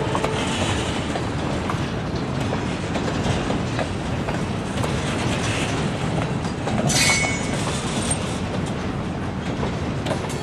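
Freight cars (flatcars and boxcars) rolling steadily past, a continuous rumble with the clickety-clack of wheels over rail joints. A brief high wheel squeal about seven seconds in.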